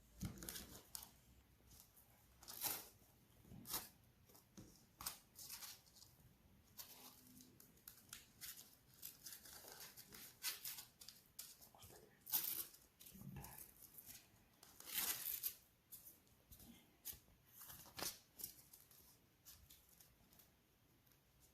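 Irregular rustling and tearing of packaging, in short scratchy bursts, as the robot vacuum is unboxed.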